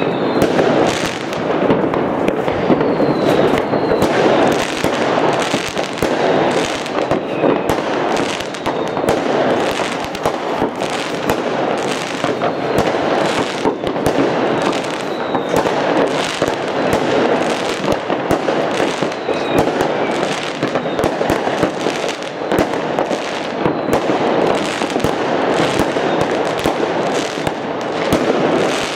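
Many fireworks rockets and firecrackers going off all around at once: a dense, unbroken crackle of overlapping bangs with no gaps.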